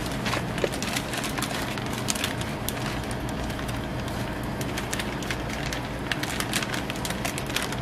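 Thin clear plastic bag crinkling and rustling in irregular crackles as a paper-wrapped crepe is slid into it and handled, over a steady low hum.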